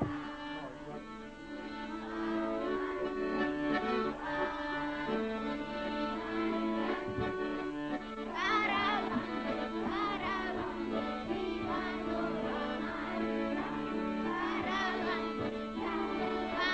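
Accordions playing a lively folk dance tune, with a high wavering melody line joining in about eight seconds in and again near the end.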